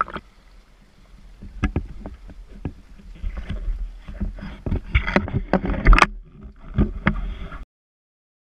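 Sea water splashing and sloshing against a harbour wall as a drysuited scuba diver climbs out, with irregular knocks of gear against the metal ladder. The sound cuts off abruptly near the end.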